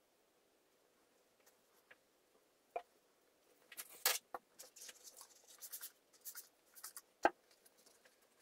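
A sheet of paper rustling and crinkling as it is handled, with a few sharp clicks, the loudest about four and seven seconds in.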